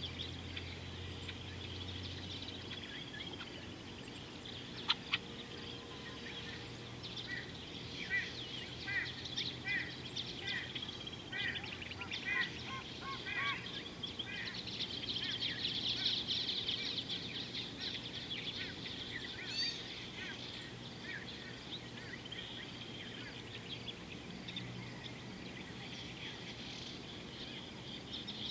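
Outdoor chorus of many birds chirping and singing, with a run of short repeated chirps from about 8 to 14 seconds in and a single sharp click about 5 seconds in.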